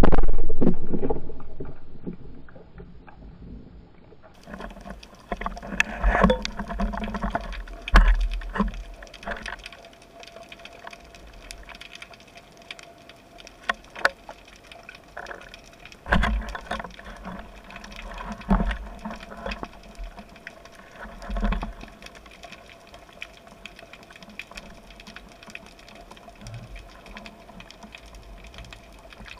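Underwater sound picked up through a waterproof camera housing on a spearfishing dive: a loud rushing burst at the start that fades over a couple of seconds, then muffled knocks and bumps with scattered sharp clicks and a faint steady hum.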